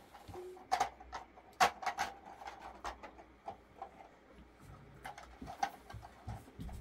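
Small glass tea cups clinking against a metal tray and each other as they are set out, a string of sharp clinks that are thickest in the first three seconds.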